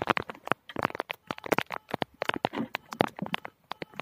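Plastic sheeting wrapped around the camera crackling, with sharp, irregular clicks and crinkles coming several times a second.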